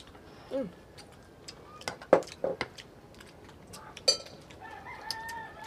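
Spoon and tableware clinking against plates and a metal tray during a meal: a few sharp clinks, the loudest about two seconds in and another about four seconds in that rings briefly. Short vocal sounds come at the start and a held hum near the end.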